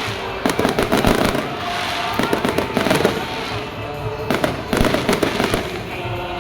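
Aerial fireworks bursting in volleys of rapid bangs and crackles, several clusters a second or two apart.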